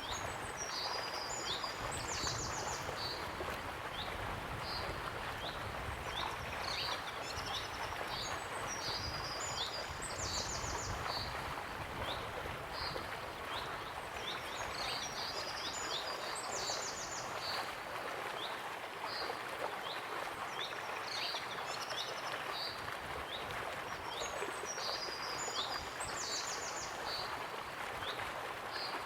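Waterfall rushing steadily, with small birds chirping and trilling over it; the same bird phrase recurs about every seven or eight seconds.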